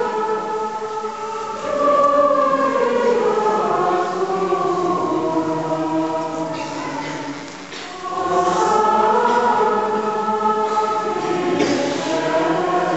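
A large congregation singing Latin plainchant together, a sung part of the Ordinary of the Mass, with a brief break between phrases just before the singing resumes.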